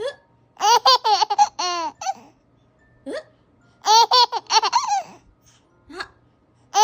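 Baby laughing in two high-pitched bouts of rapid giggles, about half a second in and again about four seconds in, with brief rising squeaks between them.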